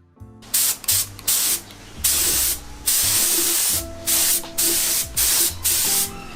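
Primer being sprayed onto a motorcycle frame in repeated hissing bursts. Short squirts come first, then two longer passes of about a second each, then a run of quick short squirts near the end.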